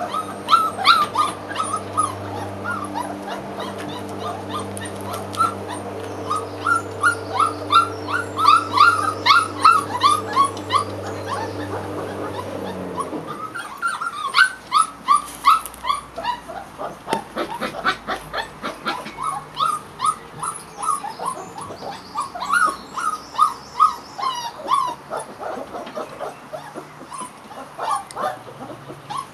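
A litter of puppies whining and yipping in quick, high-pitched cries, over and over. For about the first half a lawn mower hums steadily in the background, then stops.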